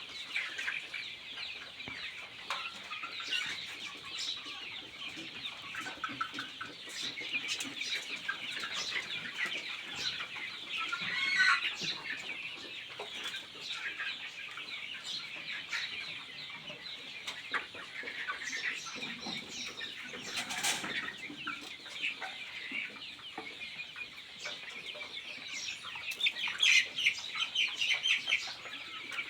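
A large flock of poultry-farm chickens chirping and clucking all at once, a dense unbroken chorus of high calls. It swells in a couple of louder bursts, about a third of the way in and again near the end.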